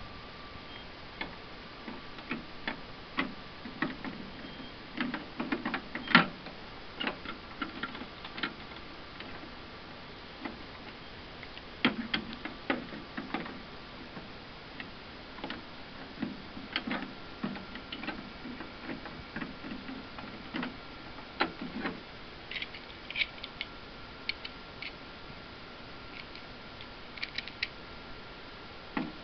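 Scattered small clicks and knocks, irregular with a few louder ones, from hands handling the plastic case of an iMac G3 being taken apart.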